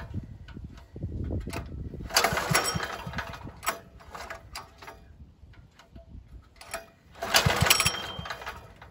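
Small 196cc single-cylinder diesel engine pulled over twice by its recoil starter, each pull a burst of cranking that fades out within a couple of seconds as the engine fails to keep running. It is not getting fuel: air in the fuel line still needs bleeding.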